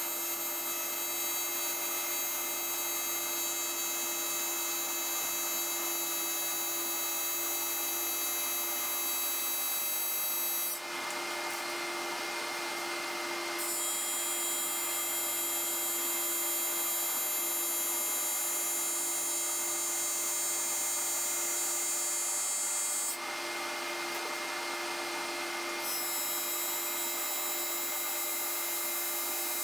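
Electric welding arc on aluminum sheet, running steadily with many high steady tones. It breaks off twice for a few seconds, about eleven and twenty-three seconds in.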